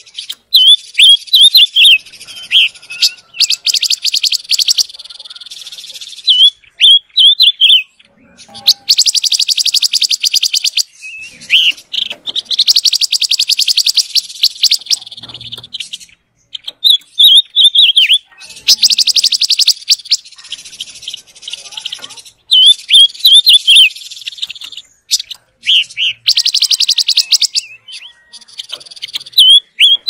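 Silver-eared mesia singing: repeated phrases of quick slurred whistles alternating with fast, buzzy trills, in bursts separated by short pauses.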